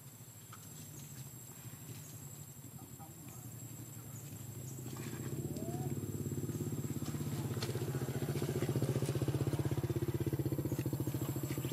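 A motorcycle engine running close by, growing louder from about four seconds in and holding steady to the end.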